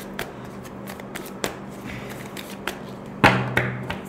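A deck of tarot cards being shuffled by hand: a run of light card taps and clicks, with a louder slap of the cards a little after three seconds in.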